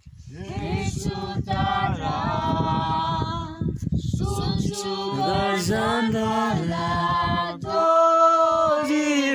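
A small group of people singing together without instruments, in long melodic phrases with brief breaks between them, about a second and a half in, around four seconds in, and near the end.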